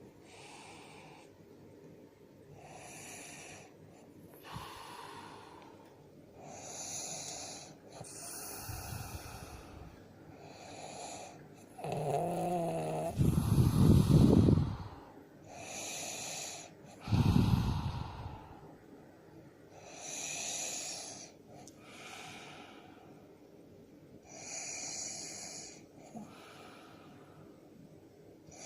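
A man snoring in his sleep: airy breaths about every two seconds, with two much louder, deep snores near the middle, the first of them carrying a brief pitched, nasal tone.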